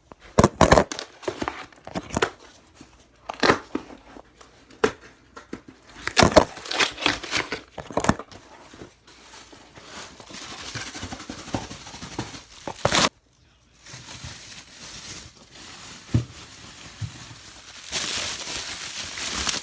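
Packaging being opened by hand: irregular crinkling, rustling and tearing with sharp clicks, then longer stretches of steady rustling near the middle and the end.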